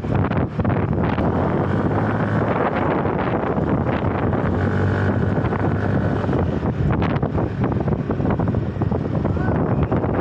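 Yamaha motor scooter being ridden, its engine running with a steady hum under heavy wind buffeting on the microphone.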